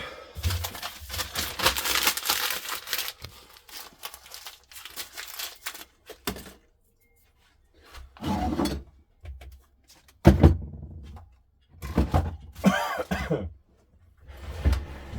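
Objects being handled on a workbench: a rattling clatter at first, then separate knocks and clunks, the loudest a heavy thunk about ten seconds in.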